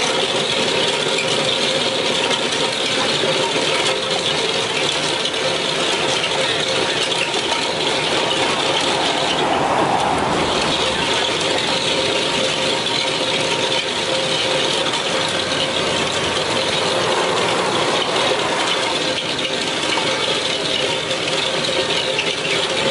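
Excavator-mounted RODO RD7 hydraulic drum cutter milling asphalt: a loud, steady grinding rattle over the Volvo excavator's running engine and hydraulics, with a steady hum. About ten seconds in the grinding briefly eases, then carries on.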